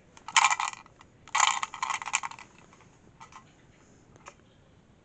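Handling noise as plush toys and a plastic toy gun are moved over a cloth bedspread: rustling with light clicks in two short bursts in the first two and a half seconds, then a few faint clicks.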